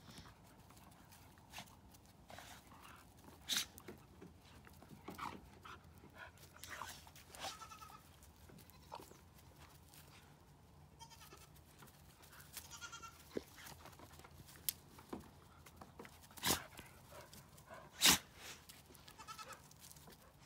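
A few short, wavering goat bleats, with scattered sharp knocks; the two loudest knocks come near the end.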